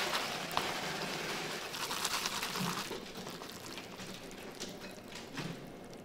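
Wet, sticky squelching and clicking of instant noodles being stirred through thick black bean sauce with metal chopsticks in a paper cup, busier for the first three seconds and fainter after.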